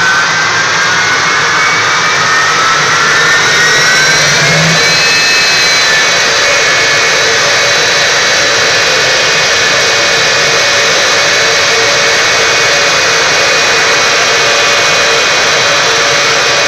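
Jet engine of a jet-powered drag-racing truck running loudly, its turbine whine rising in pitch over the first few seconds and then holding steady over a continuous roar.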